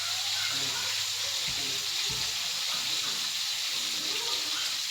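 Chicken pieces frying in hot oil, a steady sizzling hiss. Two brief dull thumps come about one and a half and two seconds in.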